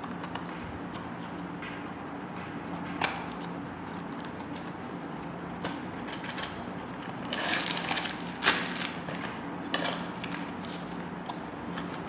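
Cardboard toy packaging being handled: scattered taps and a stretch of rustling and scraping, loudest about seven to nine seconds in with a sharp knock near its end, over a steady low hum.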